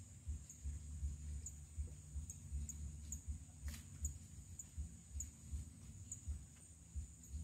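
Riverside forest ambience: irregular low rumbling buffets of wind on the microphone, over a steady high-pitched insect drone with a short chirp repeating about every half second.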